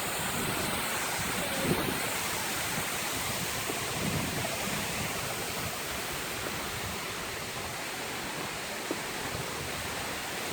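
Water from a waterfall rushing and splashing in a steady, even stream of sound, with a few faint taps over it.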